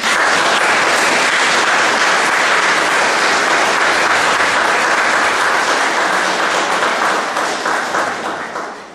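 Audience applauding: dense, steady clapping that starts suddenly and fades out near the end.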